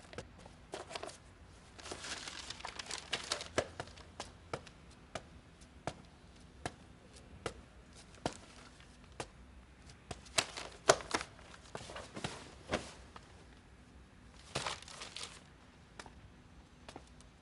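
Paper rustling as thread-bound books are handled and their pages turned, with many scattered light knocks and taps as books are picked up and set down.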